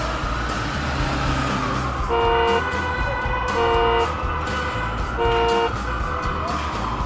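A cartoon vehicle horn sound effect tooting three times, each toot about half a second long, over background music with a steady beat.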